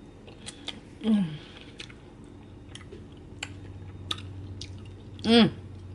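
Close-up eating sounds: wet mouth clicks and smacks while eating caramel-and-cookie gelato. There is a short "mm" about a second in and a longer pleased "mmm" near the end.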